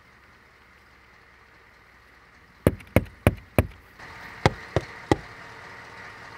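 Knocking on a car window from outside: four quick raps, a short pause, then three more.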